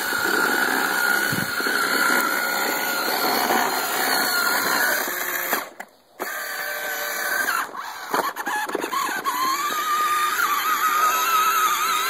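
Electric motor and gearbox of a child's battery-powered ride-on toy quad whining steadily as it drives. The sound breaks off briefly about halfway, then comes back with its pitch wavering up and down near the end.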